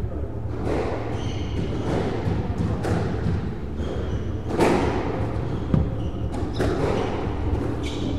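A squash rally: the ball cracks off rackets and the walls about once a second, the loudest hit about halfway through, with echo in the walled court. Court shoes squeak briefly on the wooden floor between shots.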